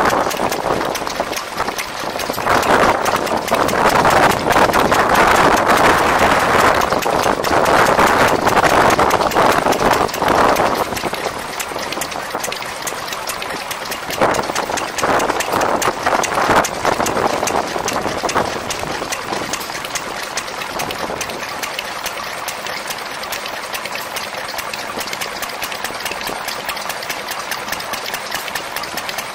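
Small vintage stationary engine running steadily with a rapid, even beat, belt-driving a small flywheel pump. The sound is louder through the first part and settles to a steadier, quieter run in the second half.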